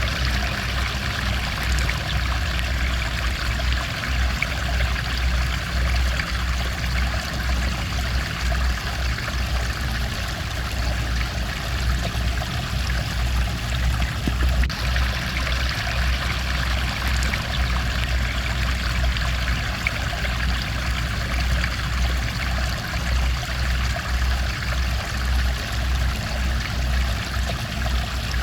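Flowing stream: water running and trickling steadily.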